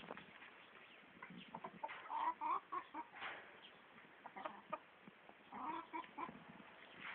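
Chickens clucking in short, scattered bursts of calls, the clearest about two seconds in and again near the end.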